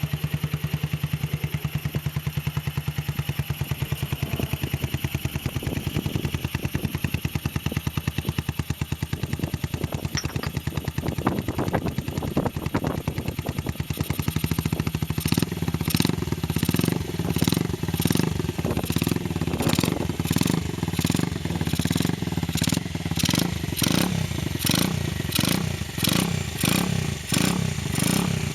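An engine running steadily. About halfway through, a regular pulsing sets in, about twice a second.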